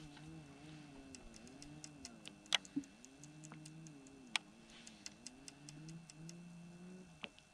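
Scattered light ticks and three sharper clicks over a faint hum whose pitch wavers slowly up and down.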